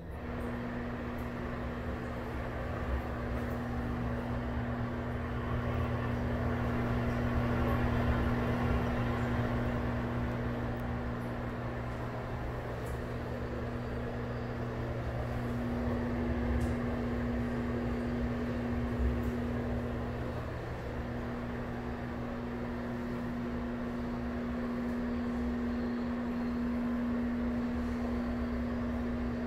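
Broan ceiling exhaust fan switching on and reaching full speed almost at once, then running with a steady hum over a rush of air.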